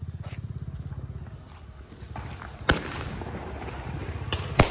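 Diwali firecrackers going off: two sharp bangs about two seconds apart, the second one louder.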